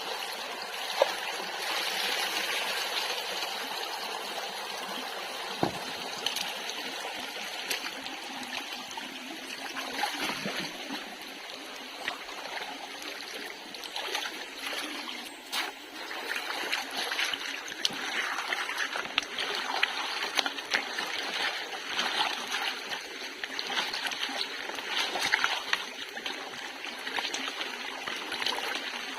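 Shallow water running and trickling, with frequent small splashes and sloshes throughout and a few sharper knocks.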